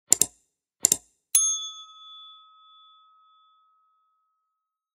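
Like-and-subscribe sound effects: two quick mouse clicks, each a double tick, then a single bell ding about a second and a half in that rings on and fades over a few seconds.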